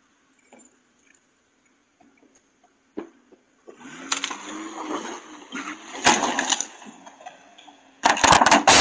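Near silence for the first few seconds. Then a pickup truck's engine revs, wavering up and down in pitch, with a noisy scraping as it reverses out of snow-covered shrubs. There are sharp knocks about six seconds in and a loud burst of knocks near the end.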